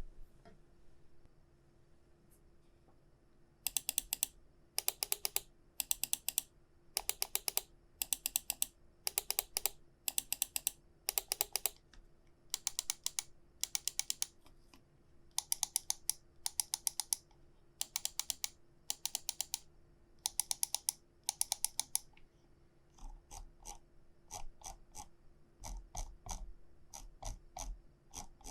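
Ninjutso Sora gaming mouse buttons clicked in quick bursts, a volley of sharp clicks about once a second after a few quiet seconds. Near the end the bursts give way to a softer, steadier run of small ticks.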